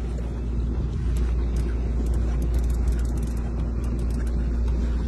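Boat engine running, a steady low drone with a faint hum, with scattered faint clicks in the middle of the stretch.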